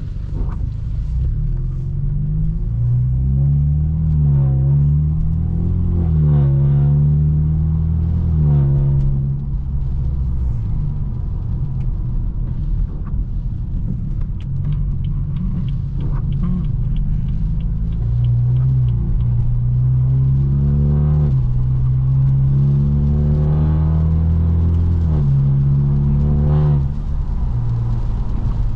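Straight-piped, tuned BMW F30 328i turbo four-cylinder exhaust under acceleration, its pitch climbing and then dropping at each gear change, several times over. In the middle it settles into a steadier cruise.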